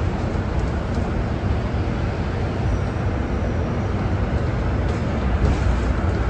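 A city bus driving, heard from inside its cabin near the front: a steady low rumble of road and running-gear noise.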